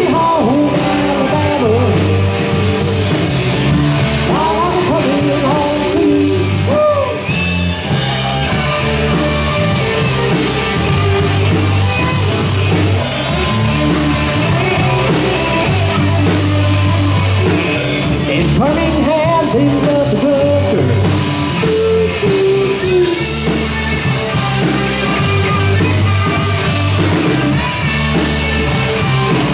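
Rock band playing live: drum kit and guitar over a low bass line, with a voice singing above them.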